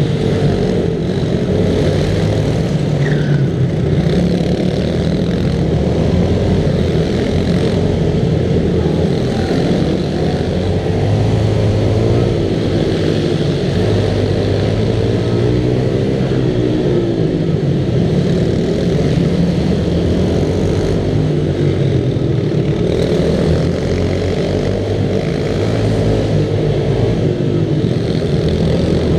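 Minibike engine running hard under race throttle, its pitch rising and falling continuously as the rider accelerates and backs off through the turns, with other minibikes close by.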